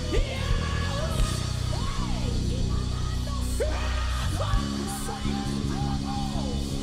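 Live worship band music: sustained low chords that change about two and four and a half seconds in, with a voice singing in long gliding phrases over them.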